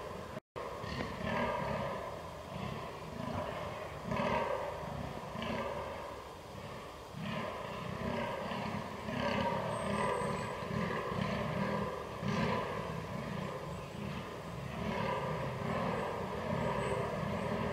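Fallow deer buck in rut groaning: a long run of short, deep, belching groans repeated in quick succession, roughly two to three a second, with brief pauses between bouts.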